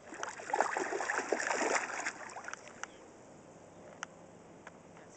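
Shallow water splashing and sloshing around a toddler's bare feet as he wades in, busy for about the first two seconds, then settling to a faint lapping with a few small ticks.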